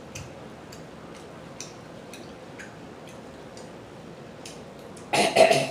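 Faint scattered lip smacks and clicks of someone eating seafood, with one louder, noisier burst of about half a second near the end.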